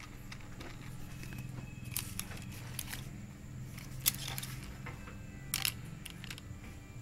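Several short, sharp clicks and taps, the loudest about four seconds in and a quick double click near the end, over a steady low hum.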